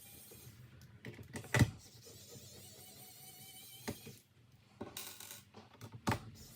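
A laptop being worked on by hand: a few sharp clicks and knocks of tools and plastic or metal parts, loudest about a second and a half in, over a faint steady whine.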